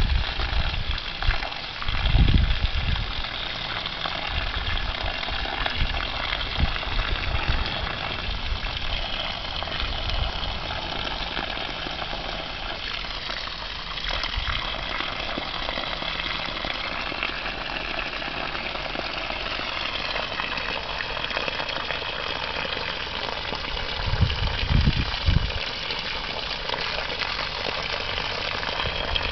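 Garden-hose water rushing through a clear tube in a steady hiss as it spirals along it as a vortex. A few low bumps about two seconds in and again near the end.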